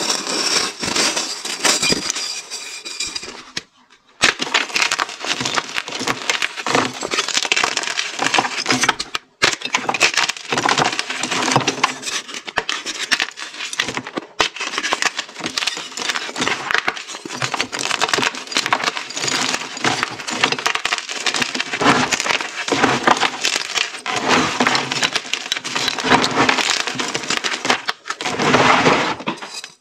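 Hands crushing blocks of pink-dyed reformed gym chalk, a dense, continuous crunching and crackling as the hard chalk cracks and crumbles between the fingers. There are brief pauses about four and nine seconds in.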